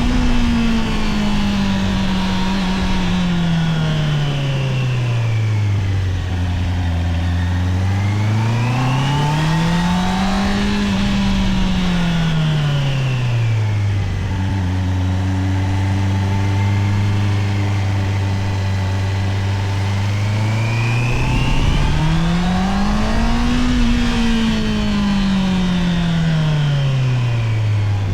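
Honda CBR650R's stock inline-four engine and exhaust while riding. Engine speed falls at first, then twice rises smoothly and falls back again. Between these swells it holds two long stretches of steady, lower-revving running.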